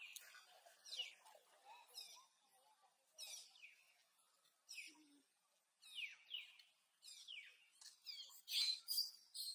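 High-pitched animal calls: short squeaks that sweep downward in pitch, about one a second, coming faster and louder near the end.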